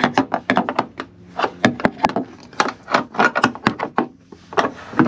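Metal wrench clicking and knocking against a half-inch nut and flange bolt at a toilet's base as the nut is worked loose: a quick, irregular run of sharp metal clicks.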